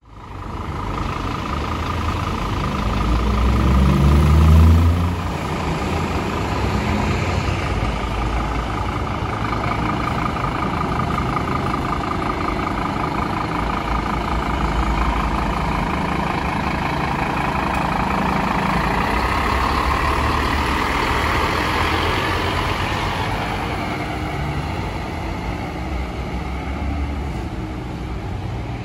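Street traffic around a diesel fire truck: an engine climbs in pitch as a vehicle accelerates about four seconds in, the loudest moment, then steady engine and tyre noise from the truck and passing cars.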